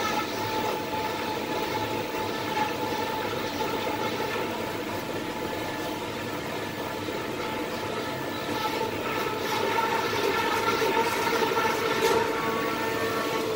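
Steady rush of a stovetop double boiler heating a pot of hot-process soap, with wavering humming tones over the noise, typical of the water bath boiling and the pots buzzing against each other. It grows somewhat louder after about two-thirds of the way in.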